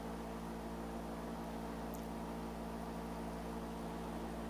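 Steady low electrical hum with a faint hiss, unchanging throughout, and one faint small click about two seconds in.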